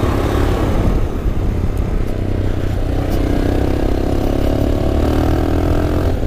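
Motorcycle engine running under throttle on a rough dirt track. About halfway through, the exhaust note settles into a steady, even drone.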